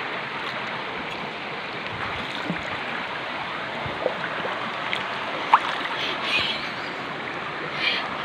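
Fast-running stream water rushing steadily, with a few brief sharp sounds over it, the clearest about five and a half seconds in.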